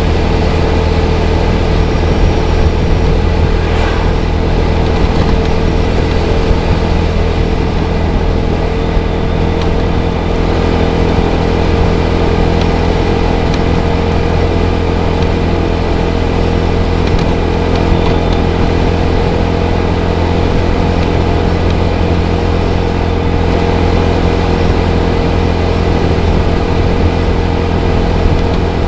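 Small 250 cc motorcycle engine running steadily at cruising speed, its pitch and loudness holding constant over a strong low rumble.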